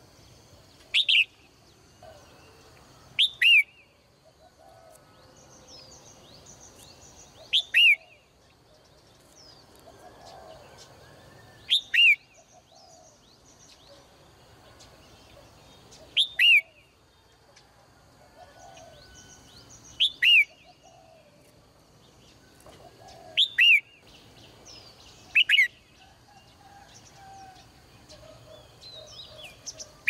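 Caged female red-whiskered bulbul calling: short, sharp notes, often in quick pairs, that drop steeply in pitch and come every two to four seconds. Fainter high twittering of other birds runs behind them.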